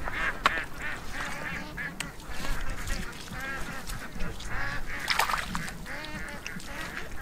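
A chorus of many short, repeated animal calls overlapping one another, with a few sharp clicks among them.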